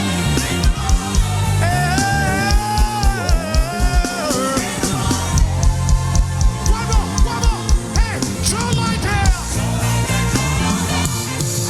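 Live gospel band playing an instrumental passage of an upbeat song: drums keep a steady beat of about two kicks a second under a bass line, while a lead part plays sliding, bent notes.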